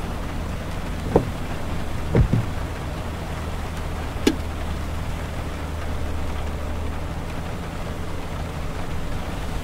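Car cabin road noise on a wet highway: a steady low drone of tyres and engine with a hiss over it. A few sharp taps and thumps break through, one about a second in, two close together a little after two seconds, and one just after four seconds.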